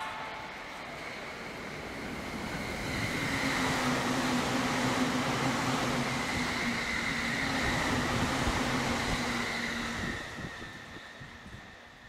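E657-series electric limited express train passing through a station at speed. Its wheel-and-rail rush builds over the first few seconds and holds with a steady low hum and a higher whine. It then fades away over the last couple of seconds.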